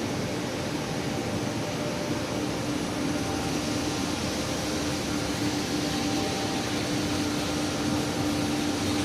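Running machinery: a steady mechanical hum and hiss with one low steady tone underneath.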